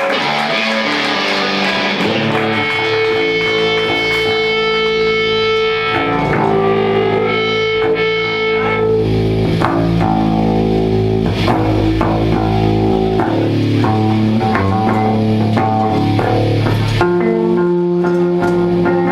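Electric guitar and bass guitar played live by a garage rock band, a run of held and changing notes over a steady bass line without singing.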